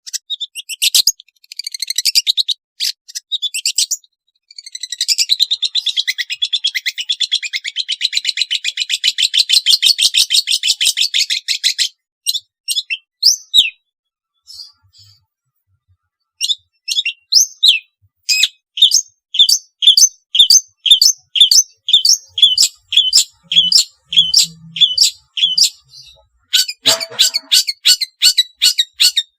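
Long-tailed shrike (cendet) singing: a fast, high chattering trill lasting several seconds, a brief pause, then a run of sharp repeated high calls, about two a second.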